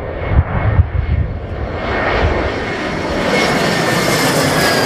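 Jet airliner's turbofan engines on landing approach, passing low overhead: a rushing engine noise that builds in loudness, with a high whine that falls slightly in pitch.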